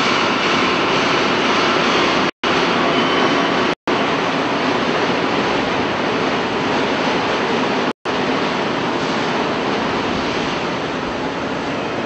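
Hydraulic scrap metal baler running: a steady, loud mechanical hum and hiss from the press and its hydraulic drive. The sound drops out completely for a split second three times.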